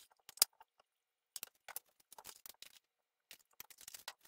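Irregular small clicks and taps of a metal spoon against a ceramic coffee mug and a plastic container being handled, with one sharp tap about half a second in.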